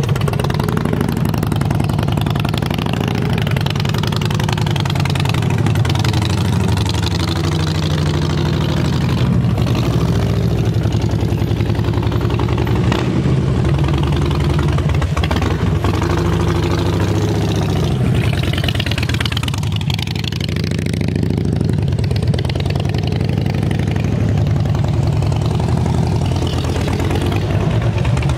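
2007 Harley-Davidson Dyna Street Bob's Twin Cam 96 V-twin running through Vance & Hines Short Shots exhaust as the bike is ridden in slow loops, the engine note rising and falling in pitch over and over with the throttle.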